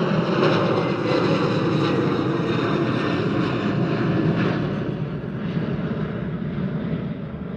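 A fixed-wing airplane passing overhead, its engines a loud, steady noise that slowly fades and grows duller toward the end.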